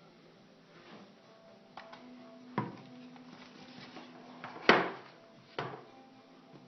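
Bike helmet and its plastic face shield being handled: four separate sharp knocks and clicks, the loudest about three-quarters of the way through.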